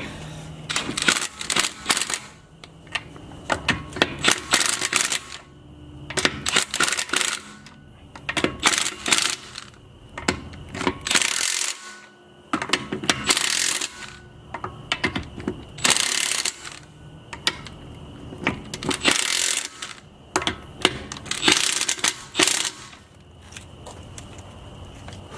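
Metal hand tools clicking and clinking in repeated short bursts, about a dozen over the stretch, as the new front brake rotor and pads are bolted onto a Nissan 350Z.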